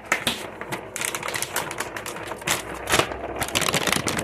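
Plastic packaging crinkling and crackling as it is handled, a dense run of irregular clicks that starts abruptly.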